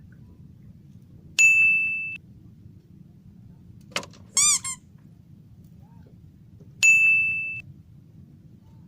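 Two identical sharp dings, each a steady high tone held for under a second and cut off, about five and a half seconds apart. A short warbling call comes between them.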